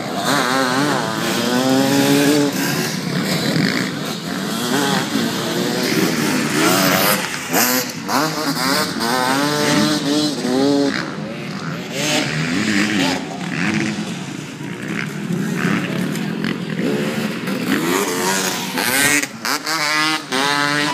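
Dirt bike engines revving hard during an endurocross race, the pitch climbing again and again as the bikes accelerate and dropping back between runs, over a steady hiss of engine and track noise.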